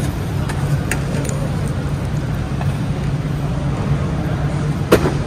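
Steady low hum, with light taps and clicks of cardboard card-storage boxes being handled over glass showcases, and one sharper knock near the end.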